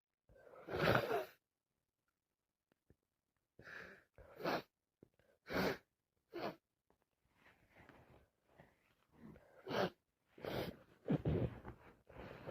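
A person with a wet head cold breathing heavily: about ten short, breathy breaths and sighs at irregular intervals, separated by brief pauses.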